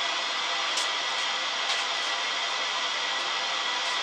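Steady hiss of static from a 1951 Zenith Porthole television's loudspeaker, with no station tuned, and faint steady tones running through it. A few faint clicks sound over it.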